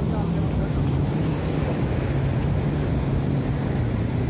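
Strong sea wind buffeting the microphone in a steady low rumble, over the continuous wash of breaking surf.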